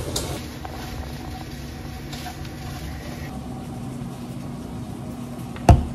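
Steady low mechanical hum of a kitchen appliance, with one sharp knock near the end.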